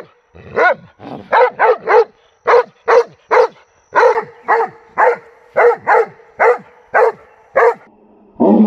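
A Doberman Pinscher barking over and over at soap bubbles, short sharp barks at about two a second, with a lower, rougher bark near the end. This is guard-dog alarm barking at bubbles it takes for a threat.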